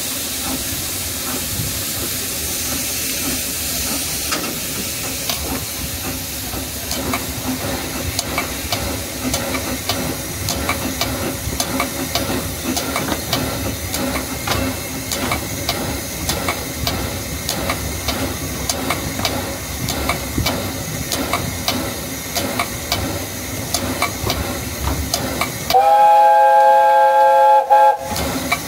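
Narrow-gauge steam locomotive on the move: a steady hiss of steam with a run of regular clicks. Near the end its steam whistle blows one steady chord for about two seconds, the loudest sound here.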